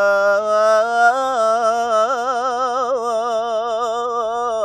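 Solo male voice singing a mawwal melisma in the Awshar mode: one long held vowel that steps up a little about a second in, then wavers in a quick ornamental trill before settling. No drum strokes.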